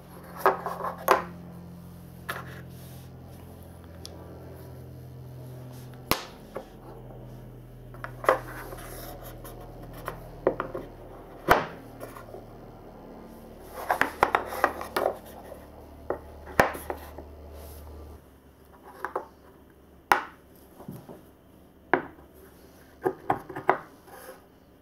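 Painted wooden marble-run track sections and pillars handled and set down on a table: scattered wooden clacks and taps, some in quick clusters, with light rubbing as pieces are slid into place.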